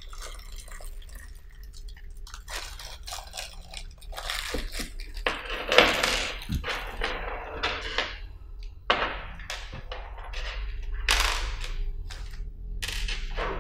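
Thin plastic packet crinkling as it is opened, with small metal bolts, screws and keys clinking and being set down on a wooden tabletop in a series of irregular clicks.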